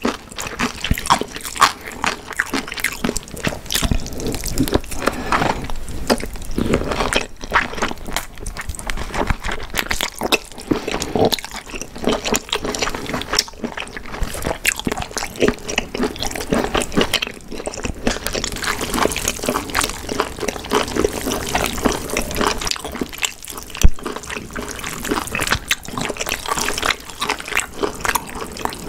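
Close-miked mukbang eating sounds: a person chewing and slurping food, with many small wet smacks and clicks. One sharper, louder click comes near the end.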